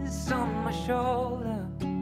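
Background music: a song with a sung melody over guitar accompaniment.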